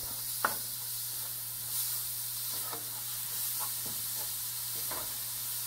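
Chopped mushroom stems, garlic and parsley sizzling in olive oil in a nonstick sauté pan, stirred with a wooden spoon that scrapes the pan a few times.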